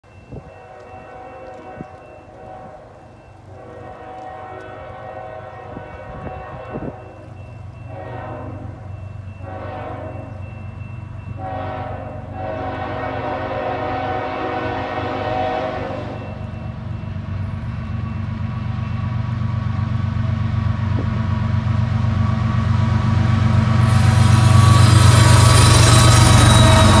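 Approaching CN freight train's locomotive air horn sounding a series of long and short blasts, the usual grade-crossing signal. The diesel locomotives' engine rumble then grows steadily louder and turns into a loud rush of engine, wheel and rail noise as the lead units pass close by near the end.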